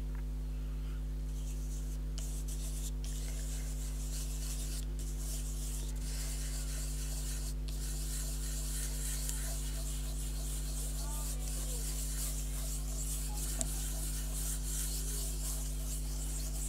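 Continual dry rubbing and wiping across a paper card surface, done to wipe a layer of glaze back off the colour. A steady low hum runs underneath.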